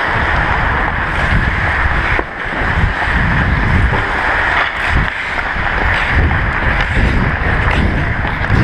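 Wind buffeting the microphone of an action camera worn by a skating ice hockey player, over a steady hiss and scrape of skate blades on the ice. A few sharp knocks come through, about two and five seconds in.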